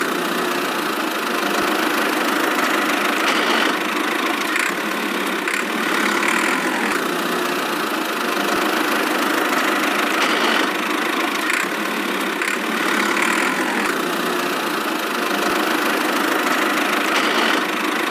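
An engine idling steadily: a continuous mechanical drone.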